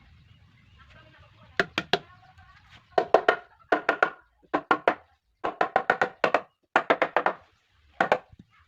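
Hammer blows on wood, struck in quick runs of three to five with short pauses between, each knock ringing briefly in the wooden frame.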